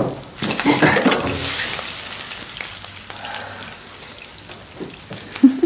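Fried eggs in a frying pan sizzling loudly and burning, with clatter as the pan is handled; the hiss fades away over a couple of seconds. A brief low-pitched sound comes near the end.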